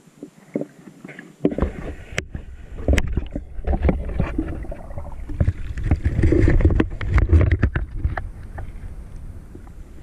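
Shallow water sloshing and splashing around a waterproof camera as it is brought up to and through the surface, with gurgles and sharp knocks. It starts about one and a half seconds in, is loudest after the middle, and eases off near the end.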